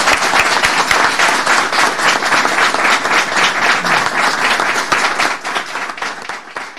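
An audience applauding, a dense patter of many hands clapping that dies down near the end.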